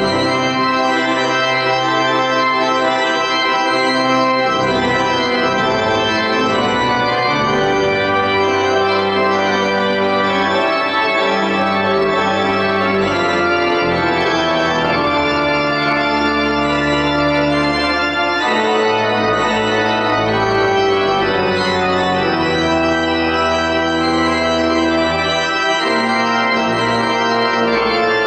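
Church organ playing sustained full chords that change every second or two over held low bass notes.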